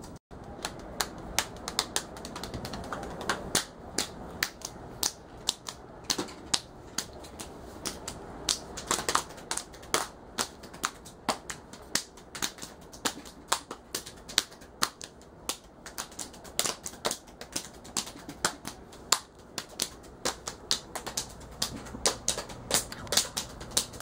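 A long run of sharp, dry clicks, about three a second and unevenly spaced, over a quiet room.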